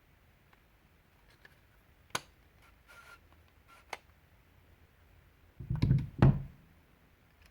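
A few light clicks and taps, then two dull knocks close together about six seconds in, the loudest sounds, as of small hard objects being handled and set down on a workbench.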